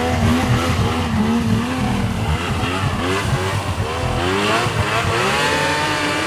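Yamaha SX Viper triple snowmobile engine revving as the sled pulls away and runs across the field. Its pitch rises and falls with the throttle, then climbs in several rising sweeps in the last couple of seconds.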